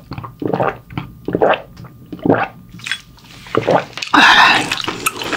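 Close-miked mukbang eating sounds: wet, squishy chewing and mouth smacks on mala-sauced pork trotter, in short irregular bursts. About four seconds in there is a longer, louder wet slurp.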